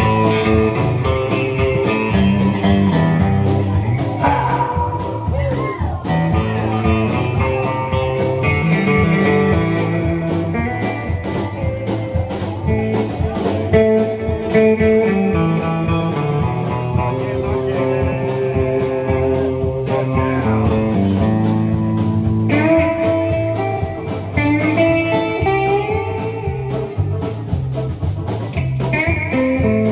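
Live band instrumental break: a Telecaster-style electric guitar plays a lead line with held and bent notes over bass guitar and a steady beat.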